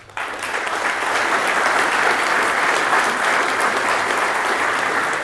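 An audience applauding, starting abruptly and holding steady.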